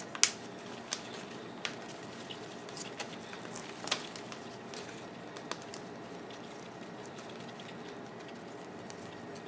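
Paper wrapping crackling and rustling in a few short, separate crackles as it is handled and worked loose from around a plant pot, the sharpest about a quarter second in. After about six seconds only a steady low room hum is left.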